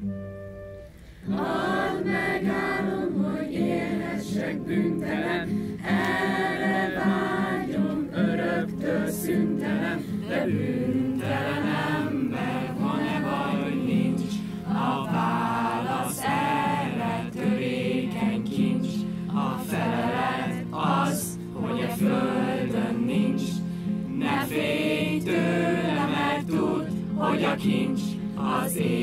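A group of voices singing a song together over a steady low accompaniment. The singing comes in suddenly about a second in, after a short flute passage.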